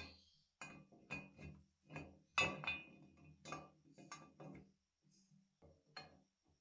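Metal clinks and scrapes as the meat grinder's feed screw (auger) is slid into its metal housing and seated, in a quick run of short knocks. A few lighter clinks near the end as the crank handle is fitted onto the shaft.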